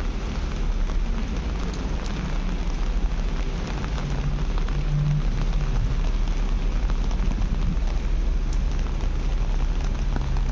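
Steady rain falling, a continuous hiss with many small drop ticks over a low rumble, and a brief low hum about halfway through.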